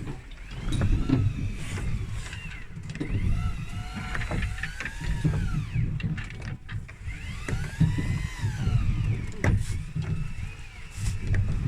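A boat's engine running with a steady low rumble. Over it come several high tones that rise and fall in arcs, each about a second long.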